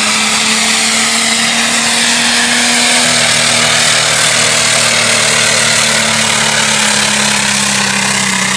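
Pulling tractor's engine running loud and steady under power, its pitch held nearly constant, with a dense hiss of noise over it.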